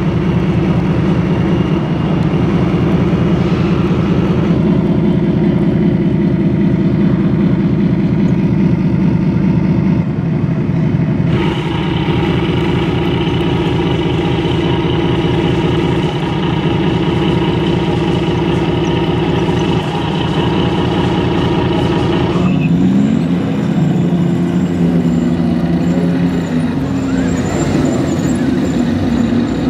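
Large-scale RC model tanks driving, with a steady low engine drone. The sound changes character abruptly twice, and in the last part its pitch rises and falls as the tank revs and moves.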